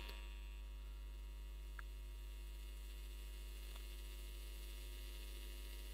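Steady low electrical mains hum with a buzz of even overtones, unchanging throughout; two faint small ticks about two and four seconds in.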